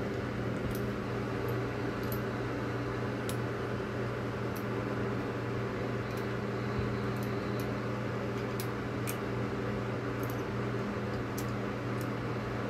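A steady low machine hum, with light clicks of small screws being fitted and turned into the pressure pump's front housing scattered through it.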